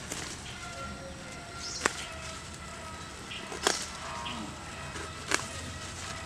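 Kharkol leaf stalks snapped off by hand: sharp snaps, about one every two seconds, over a steady background hum.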